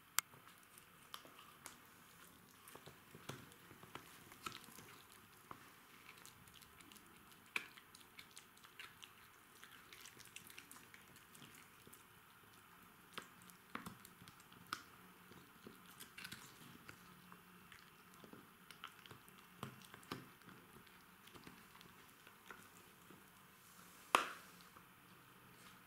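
A Jack Russell terrier gnawing a chew stick: irregular soft crunching and clicking of teeth, with one sharper crack near the end.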